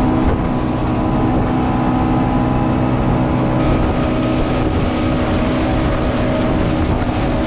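Outboard motor on a small boat running steadily at speed, an even engine drone with no change in pitch, over the rush of water from the wake.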